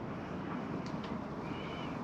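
Steady outdoor wind noise on the microphone, with a faint short high chirp about one and a half seconds in and two faint ticks just before it.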